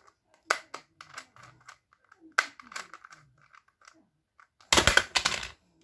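Plastic Sengso Rubik's clock puzzle being worked by hand: single sharp clicks as pins are pressed and wheels are turned. A loud, dense run of rapid clicking comes near the end.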